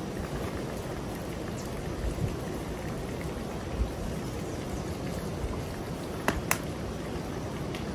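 Brown trout sizzling steadily in a frying pan on a propane camp stove, under a low wind rumble on the microphone. Two sharp clicks sound a little over six seconds in.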